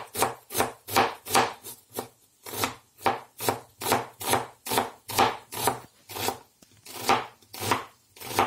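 Kitchen knife finely chopping an onion on a plastic cutting board: a steady run of knife strokes hitting the board, about two to three a second.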